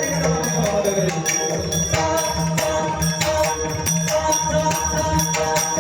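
Devotional kirtan music: small hand cymbals striking in a fast steady rhythm over mridang drum strokes, with a held melody line above.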